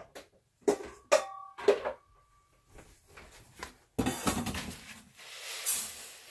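Knocks and clinks of a stainless steel mixing bowl being handled, one leaving a short metallic ring. Then, about four seconds in, coarse bath salts pour from a plastic bowl into the steel bowl in a steady rushing hiss.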